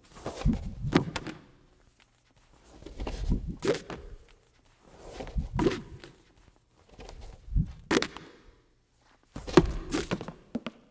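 Large cardboard cue cards being handled and swapped: a rustle with a knock about every two seconds, five times. Near the end, footsteps as the card holder turns and walks away.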